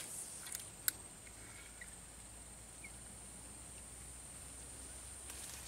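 Faint, steady, high-pitched drone of insects, with two or three sharp clicks in the first second.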